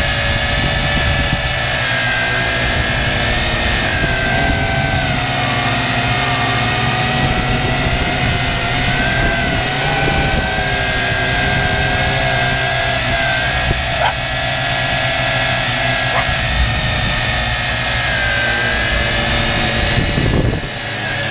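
A drone's electric motors and propellers whining, heard from the GoPro mounted on the drone itself. The whine is steady, with its pitch drifting up and down as the throttle changes.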